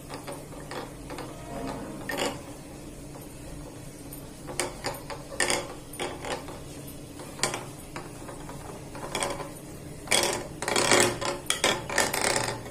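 Irregular clicks and clatter of a utensil against a steel vessel as curd is whisked into buttermilk. The strokes come thickest in a dense run near the end, over a faint low hum.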